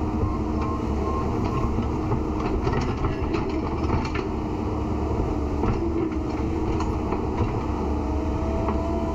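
A vehicle engine running steadily, with a faint steady whine and scattered light clicks and rattles.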